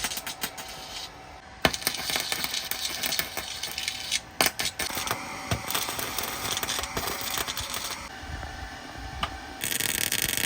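Arc welding a patch into a sheet-steel car floor pan: a dense, steady crackle that starts about a second and a half in and stops and restarts a few times as the welds are laid down. The steel still has panel adhesive smeared on it where it is being welded.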